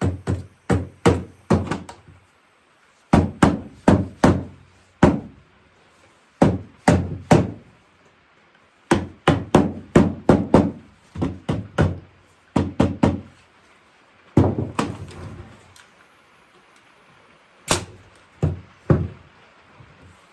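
A hammer striking oak chair parts in quick runs of three to six blows, with short pauses between the runs.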